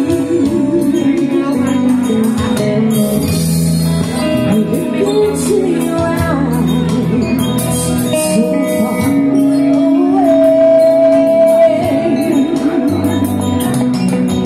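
Live band playing a song: electric bass, electric guitar and keyboard under a singer's voice that holds notes with vibrato.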